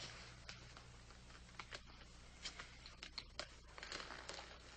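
Near silence: quiet room tone with a few faint, short clicks scattered through it.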